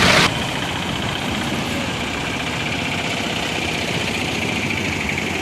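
Auto-rickshaw engine running steadily with a fast, even beat. A louder noise cuts off abruptly just after the start.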